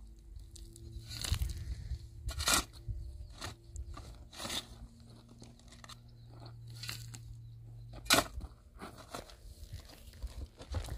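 Long-handled hoe scraping and chopping into dry, stony soil: irregular crunching strikes about once a second, the sharpest one about eight seconds in.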